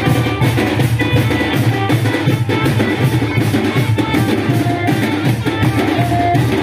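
Koraputia band-party music: a steady, driving drum beat with short held melody notes over it.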